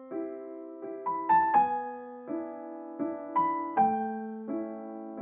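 Background piano music: gentle chords and single notes struck at an even pace, about one every three-quarters of a second, each ringing and fading.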